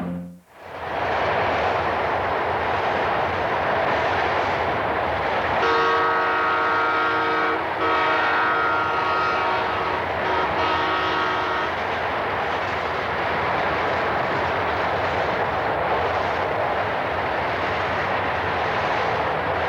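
Steam locomotive running with a steady rumble and rush of exhaust, sounding its multi-note chime whistle about six seconds in: three blasts with brief breaks, the first two long and the last shorter.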